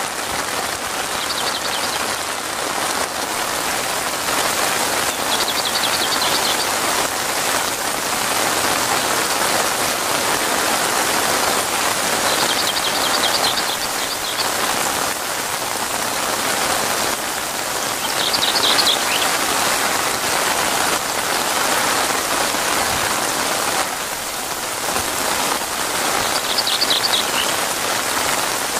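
Heavy rain falling steadily on leaves and open water, a dense even hiss. Short high chirping trills break through briefly about five times.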